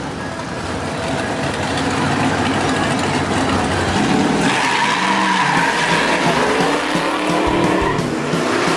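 Drag-racing car engine revving hard with tyres squealing, growing louder over the first couple of seconds, with the engine note rising and falling in the second half.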